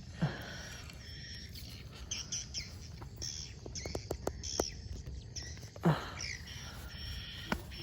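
Birds chirping outdoors, with a quick run of short sharp clicks about four seconds in.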